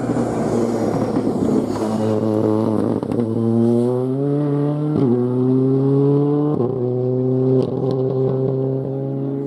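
Ford Fiesta R5 rally car's turbocharged 1.6-litre four-cylinder accelerating hard away on a gravel stage, its pitch climbing and then dropping sharply at four quick upshifts. Tyres on loose gravel add a rough noise in the first few seconds as it passes.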